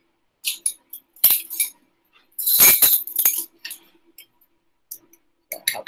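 Metal measuring spoons on a ring clinking and rattling against glass as a teaspoon of salt is measured out. There are a few sharp clinks at first, a louder rattle of clinks about halfway through, and then a few faint ticks.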